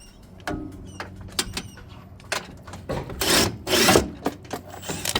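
Tool work on a Can-Am Maverick X3's rear sway bar bracket: scattered metallic clicks and knocks, with two louder rasping bursts of about half a second each a little past the middle.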